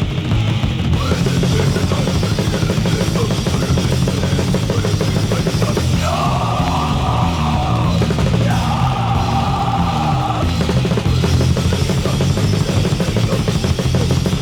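Recorded heavy rock band playing loud and dense, with a drum kit and cymbals driving it. The cymbals come in about a second in, and two long held notes rise above the band in the middle.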